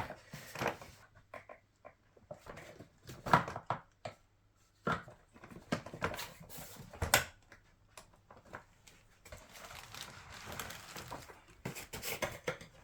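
Plastic knocks and clicks as toy walker wheels are pushed onto their axles and snap into place, coming irregularly several times.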